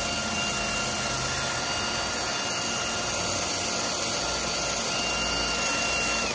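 Cordless Milwaukee drill spinning a stainless steel wire wheel against a stainless steel weld joint, cleaning it before TIG welding: a steady motor whine over the scratch of the wire bristles, stopping suddenly at the end.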